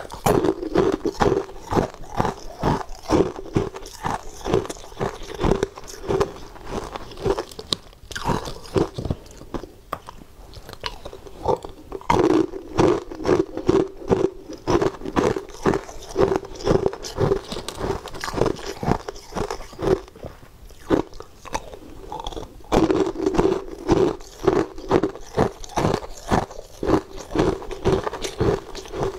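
Close-up crunching of frozen ice being bitten and chewed: a rapid run of sharp crunches about two to three a second, with a couple of brief lulls.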